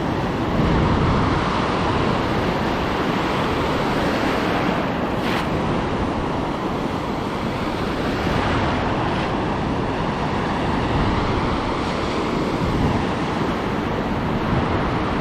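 Pacific surf washing steadily around a wading angler, with wind on the microphone.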